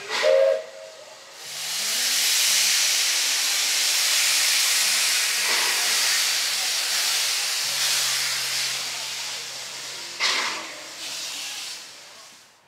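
Ex-South African Railways NG/G16 Beyer-Garratt steam locomotive NG129: a short, loud whistle toot, then a long, steady hiss of steam from the open cylinder drain cocks as it starts away. A sharper burst of steam comes about ten seconds in, and the hiss fades near the end.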